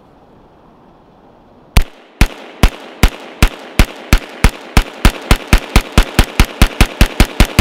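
B&T GHM9 9mm semi-automatic pistol fired in a rapid string of about twenty-two shots, starting nearly two seconds in. The shots speed up from about two to about six a second. It is cycling 124-grain Federal HST hollow-point rounds without a stoppage.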